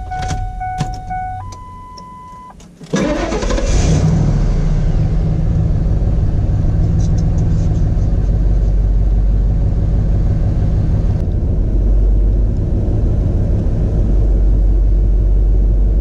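Two steady electronic tones, then about three seconds in the starter cranks a 1997 Ford F-150's engine. It catches within a second and settles into a steady idle. It is running on the fuel pump relay borrowed from the non-starting 2003 F-150, which shows that relay is good.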